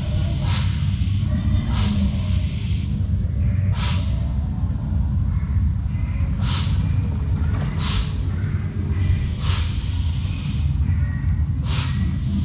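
Short, sharp hisses of released air, about seven at irregular gaps of one to three seconds, over a steady low rumble. They are typical of pneumatic effects on an animatronic dinosaur ride, such as snorting dinosaurs.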